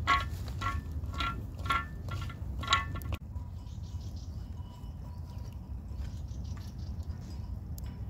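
Metallic clanks with a bell-like ring, about two a second, six in all, over a steady low rumble. They stop abruptly about three seconds in, and only faint rustling remains.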